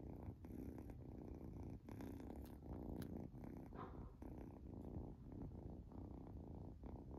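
Three-month-old kitten purring steadily.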